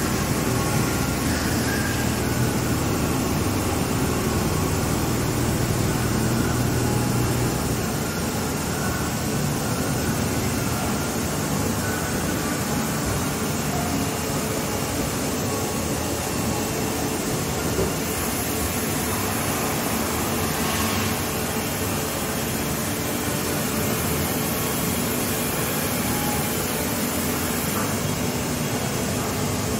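A 2016 Haas EC-400 horizontal machining center running with flood coolant: a steady wash of noise from coolant spraying and splashing against the inside of the enclosure window, over the machine's running sound.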